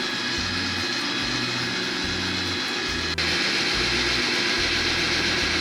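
Small electric drill running steadily, a half-inch masonry bit grinding into a water-lubricated ceramic pot. A click about three seconds in, after which it is a little louder.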